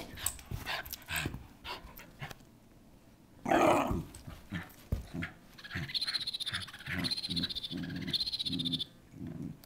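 Schnauzer growling in play while worrying a stuffed toy, with one louder outburst about three and a half seconds in. In the last few seconds a high chirping from the toy's squeaker runs over the growls.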